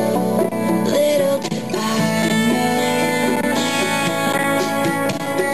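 Background music with plucked strings.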